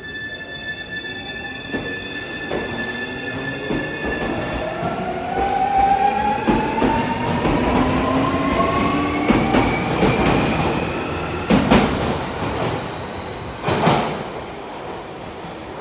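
Keio 1000 series electric train with a Toyo Denki IGBT VVVF inverter, heard from inside the car as it accelerates. The inverter first holds a steady low-pitched tone, then its whine rises steadily in pitch. Two sharp knocks from the wheels on the track come near the end.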